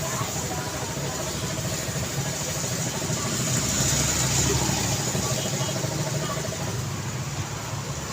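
City street traffic: a steady mix of engines and tyre noise, with a vehicle passing close and loudest about four seconds in.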